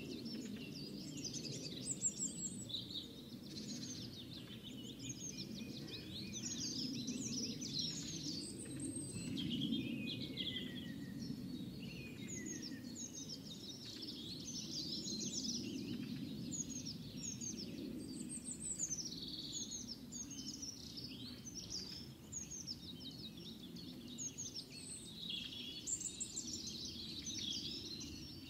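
Small birds chirping and twittering continuously in many quick, mostly falling notes, over a low steady background noise.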